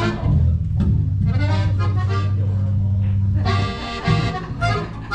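Band instruments played briefly during a sound check, with a long low note held through the middle and chords above it.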